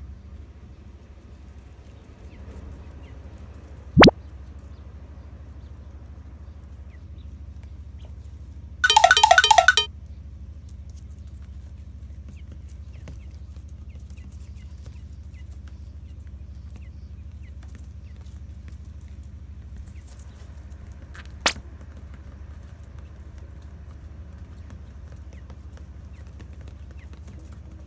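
Comic sound effects added in editing: a sharp click about four seconds in, a one-second buzzy, rapidly pulsing cartoon effect a few seconds later, and a smaller click later on, over a low steady hum.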